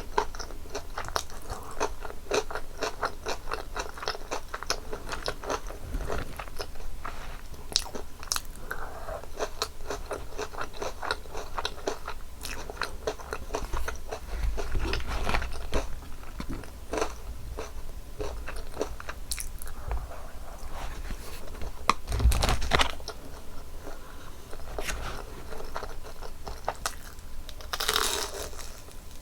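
Close-miked eating of a crispy cheese pork cutlet: rapid crackly crunching and chewing of the breaded crust, with a few louder bites, the loudest about two-thirds of the way through.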